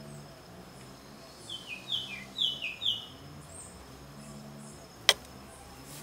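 A bird calls in a quick run of short chirps, each stepping down in pitch, starting about a second and a half in, over faint steady insect chirping. About five seconds in there is a single sharp click, the loudest sound.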